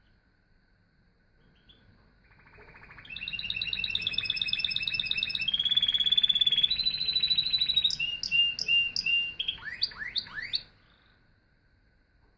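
Domestic canary singing one song phrase of about eight seconds: fast trills held at several pitches in turn, ending in a few quick upward sweeps before stopping abruptly.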